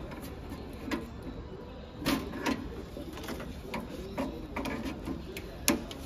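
Irregular light clicks and clinks of a brass propane hose fitting being handled and threaded onto a griddle's gas regulator, with a louder click near the end.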